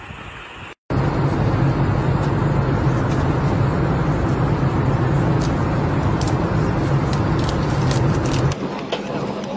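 Airliner cabin noise in flight: a steady, loud engine and air drone with a low hum. It starts after a moment's silence near the start and drops to a quieter steady drone about eight and a half seconds in.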